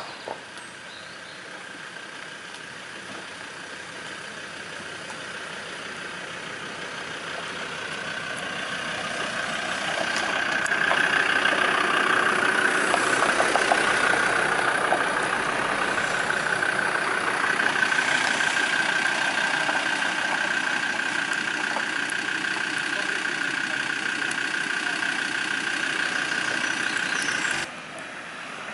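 Fire-service vehicles driving past on a forest dirt track. The engine noise builds over about ten seconds as the Renault Kangoo rescue van approaches, is loudest as it passes, and carries a steady high whine. It cuts off suddenly near the end.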